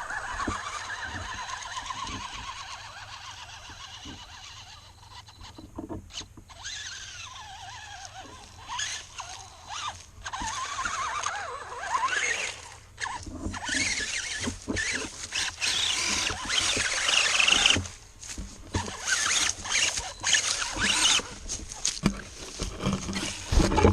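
Electric RC truck's motor and gears whining, the pitch wavering with the throttle, joined by rough noise and many short clicks from the drivetrain and wheels that grow louder in the second half.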